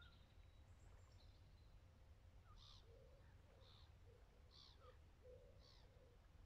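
Near silence with faint bird calls: a short high call about once a second from the middle onward, with fainter lower calls alongside, over a low steady background rumble.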